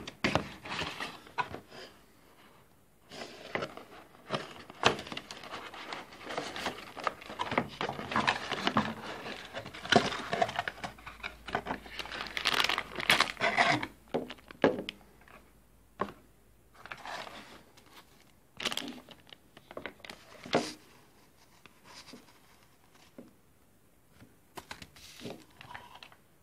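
Hand-unpacking rustle: a clear plastic bag crinkling and cardboard packaging being handled. Dense crinkling through the first half, then scattered rustles and light taps.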